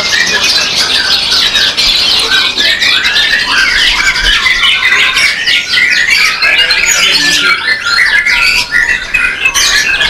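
Several caged songbirds singing at once, a loud, continuous overlapping chorus of rapid chirps, trills and quick rising and falling whistled notes.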